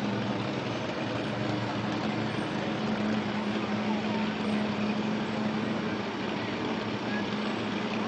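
A slow-moving parade vehicle's engine running steadily, with a constant low hum over street noise.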